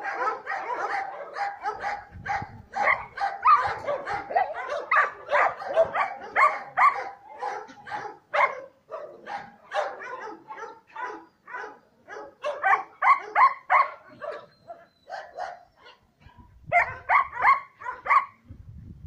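Several dogs barking over one another in quick, repeated barks. The barking is dense for about the first nine seconds, then thins into short volleys near the end.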